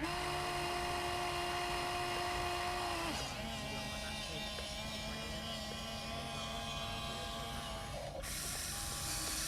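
Small electric motors of radio-controlled construction machines whining steadily at a held pitch. The pitch drops to a different steady whine about three seconds in, and the sound changes again near the end.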